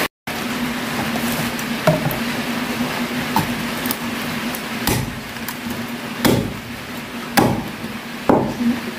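A heavy chopping knife striking through a scorched pig's head into a thick wooden chopping block, about six chops roughly a second apart and harder toward the end, to take off an ear. A steady low hum runs underneath.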